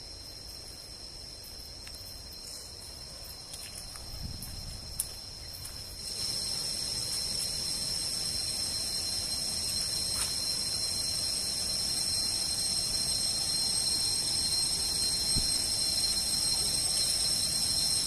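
A chorus of forest insects sounds a steady, high-pitched shrill of several held tones, growing louder about six seconds in. A single short click comes about five seconds in.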